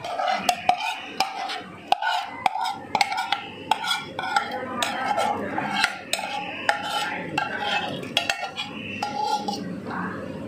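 A metal ladle scrapes thick cooked masala out of a metal pan into a pressure cooker, with repeated sharp, irregular clinks of metal striking metal between the scrapes.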